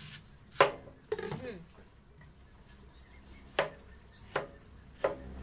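Cleaver-style kitchen knife chopping through a peeled mango onto a plastic cutting board: four sharp knocks, the loudest about half a second in and three more close together near the end.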